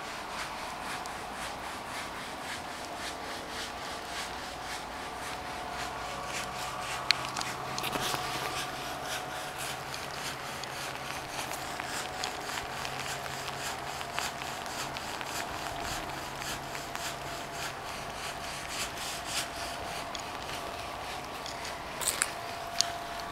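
Steady hiss and rustle with faint, long, drawn-out tones held underneath. The uploader hears these tones as distant bells and trumpets with no church nearby. A few sharp clicks come near the end.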